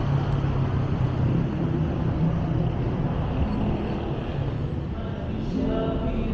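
City street traffic: a steady low rumble of car engines and tyres. A faint thin high whistle sounds for about a second midway, and music begins near the end.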